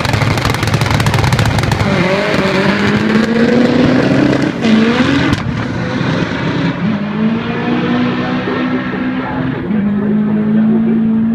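Drag car's engine at full throttle on a quarter-mile pass, pulling away down the strip. Its note climbs and drops sharply twice, about four and a half and seven seconds in, as it shifts gear.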